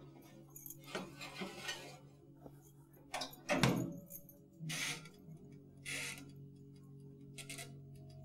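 Glass baking dish and wire rack of a Miyako toaster oven clattering as the dish is pushed in and the oven door is shut, with the loudest knock about three and a half seconds in. Several lighter clicks and knocks follow, the last as the timer knob is turned.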